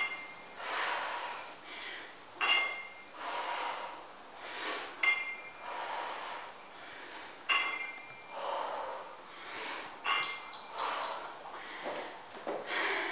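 Hard, rhythmic breathing through a set of bent-over dumbbell rows, with the metal plates of the adjustable dumbbells clinking at each rep, five times about two and a half seconds apart; the last clink rings on for about a second.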